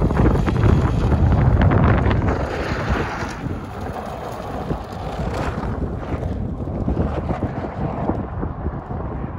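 Wind buffeting the microphone: a rumbling, gusting noise with no clear tone, strongest in the first couple of seconds and easing after that.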